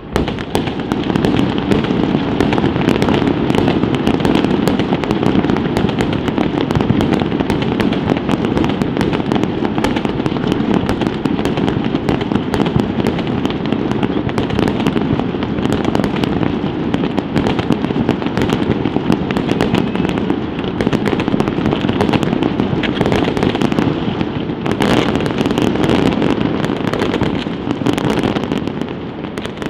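City fireworks display going off in a dense, continuous barrage: a heavy rumble of overlapping bangs with rapid crackling on top, jumping suddenly louder at the start.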